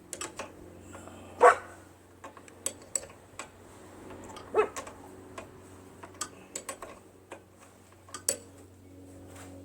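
A dog barks sharply twice, the first bark the loudest sound, among scattered light clicks and taps.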